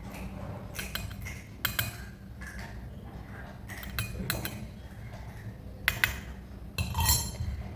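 Kitchen dishes and utensils clinking and knocking as they are handled, in a series of short sharp clinks at irregular moments, a few of them close together near the middle and near the end.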